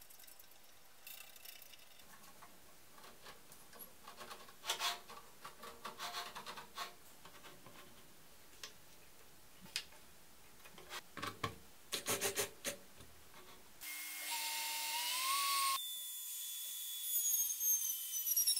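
Clicks and clacks of hard plastic jig parts and knobs being handled and tightened. About fourteen seconds in, a router starts with a rising whine. Near the end its tones slide downward as the bit cuts into a wooden dowel.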